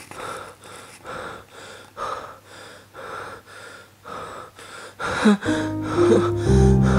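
A man's heavy, ragged breathing in distress, a run of quick gasping breaths. About five seconds in, music with low sustained notes comes in and becomes the loudest sound.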